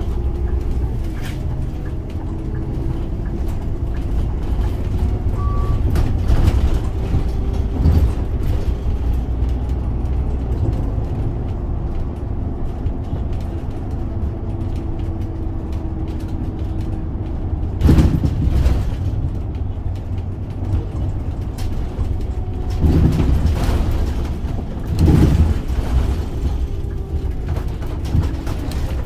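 Scania OmniLink three-axle city bus with a biodiesel engine, heard on board while driving: a steady low engine rumble with a drivetrain whine that rises and falls as the bus speeds up and slows. Several sharp knocks and thumps break through, the loudest about two-thirds of the way in.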